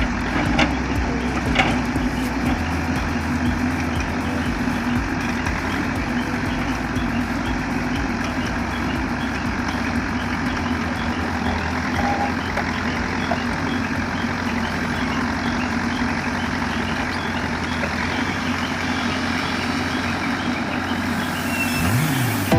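Heavy diesel construction machinery running steadily, with a faint reversing alarm beeping at an even pace.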